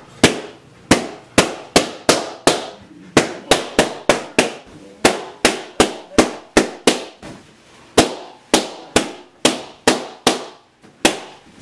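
Latex party balloons being stabbed with a kitchen knife and bursting one after another: more than twenty sharp pops at an uneven pace of about two or three a second.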